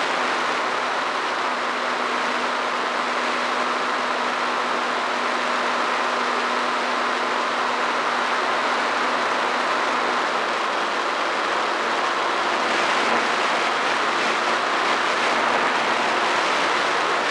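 A drone's motors and propellers running steadily in flight, a continuous rushing hiss with a faint steady hum under it, picked up by the drone's own camera.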